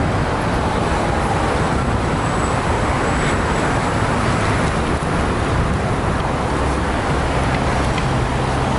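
Steady road traffic noise: cars running on a city street.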